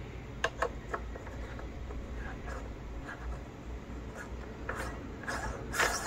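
A microscope camera being screwed by hand onto a C-mount adapter on a trinocular stereo microscope: a few light clicks, then rubbing and scraping of the threads and housing, with a louder scrape near the end.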